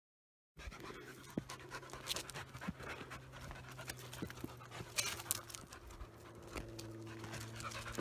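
A dog panting, with scattered small clicks and scuffs.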